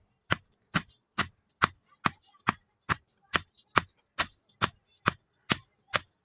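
Hammer striking leaf-spring steel on an anvil in a steady rhythm, about two blows a second, each with a high metallic ring.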